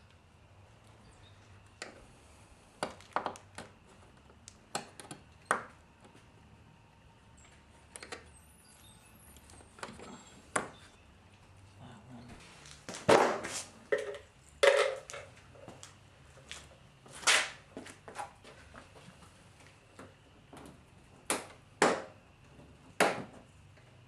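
Scattered clicks, taps and knocks of hand work on a car's plastic front bumper: push-pin retainers and fasteners being pried out, with a louder cluster of knocks about halfway through.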